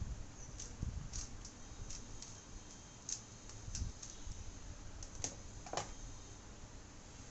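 A 3x3 Rubik's cube being turned quickly during a speedsolve, its plastic layers clicking and clacking irregularly. Near the end come two louder clacks as hands come down on the computer keyboard.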